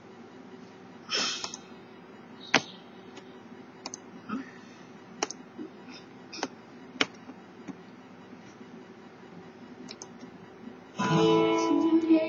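Quiet room with a few scattered sharp clicks and knocks, then recorded guitar music starts abruptly about a second before the end: the intro of a song's backing track, not played by anyone in the room.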